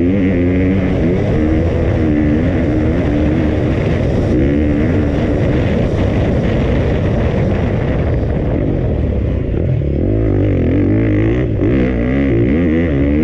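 2020 KTM 250 four-stroke single-cylinder motocross bike under way. The engine's pitch rises and falls over and over as the throttle is opened and rolled off and gears are shifted. It is heard from a helmet-mounted camera.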